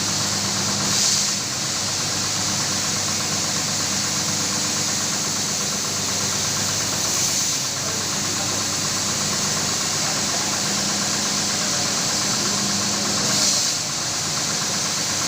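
Motorised carpet-washing machine running steadily: a motor hum under a strong hiss, swelling briefly about every six seconds.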